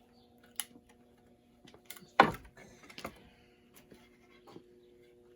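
Wooden boards being handled and knocked against each other during fitting: a few light clicks and one sharp knock about two seconds in, over a faint steady hum.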